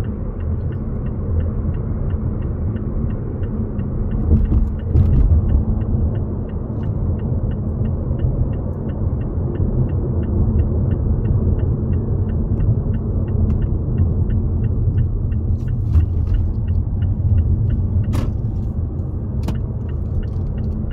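Car driving on city streets, heard from inside the cabin: a steady low rumble of engine and tyre noise. A faint high tick repeats about three times a second, and a few sharp clicks come in the second half.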